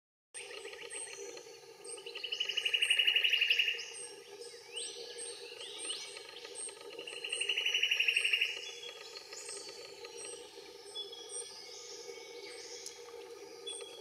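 Bush birdsong from several birds. Two loud, rapid trills about four seconds apart each swell over a second and a half, with short whistled calls and a steady high pipping about twice a second in between.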